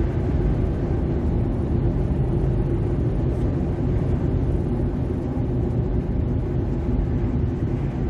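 Steady road and engine rumble inside a moving car.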